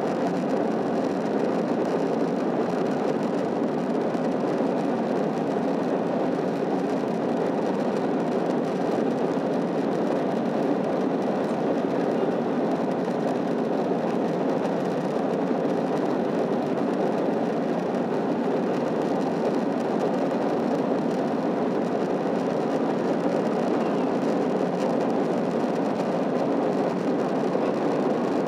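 Steady cabin noise in an Airbus A321-211 airliner climbing after takeoff: its CFM56 engines running and air rushing past the fuselage, an even noise with no changes.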